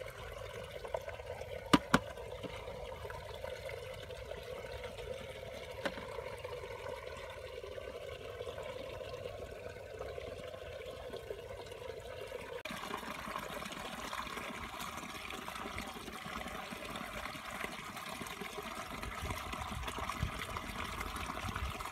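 Water trickling and dribbling steadily through wet mud, with two sharp knocks about two seconds in. The water sound shifts abruptly to a brighter, hissier trickle a little past halfway.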